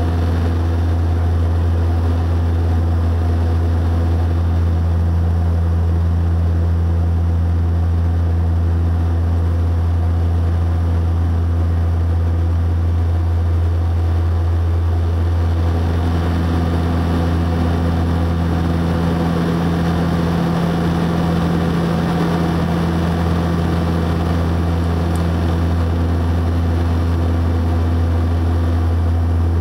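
Steady drone of a turboprop airliner's engines and propellers heard from inside the cabin while it climbs out after takeoff, a deep propeller hum the loudest part, with a higher tone getting stronger about halfway through.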